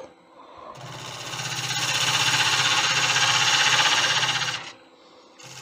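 A turning tool cutting a wet monkey puzzle bowl blank spinning on a Laguna 1836 wood lathe, with a fast, even pulsing from the rotating blank. The cut starts about a second in, breaks off near the end and starts again.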